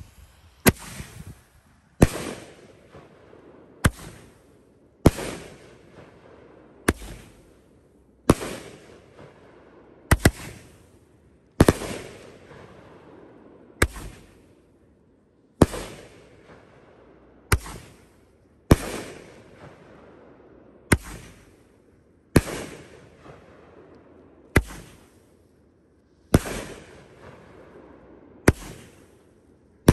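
A 500-gram, 16-shot consumer firework cake firing its shots one after another, about one every second and a half to two seconds. Each shot is a sharp bang that trails off over a second or so.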